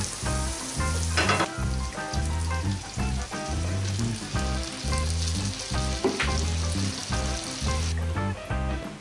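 Butter and chopped garlic sizzling in a frying pan as they are stirred, with a short louder burst about a second in as cream and milk go into the hot butter; the sizzle fades near the end. Background music with a steady bass beat plays under it.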